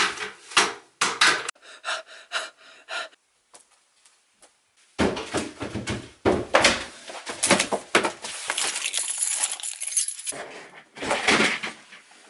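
Foley sound effects for a student's short sound story: a quick run of clicks and knocks, a pause, then several seconds of dense clattering and rustling, and a short noisy burst near the end.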